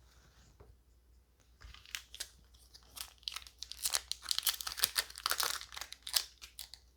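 Foil booster-pack wrapper of a trading card game being crinkled and torn, in a quick run of irregular crackles that starts about two seconds in and is densest in the middle.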